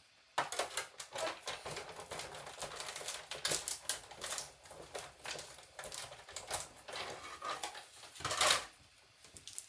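Hand-cranked die-cutting machine feeding a die sandwich through its rollers: a run of irregular clicks and clatter, loudest about eight and a half seconds in.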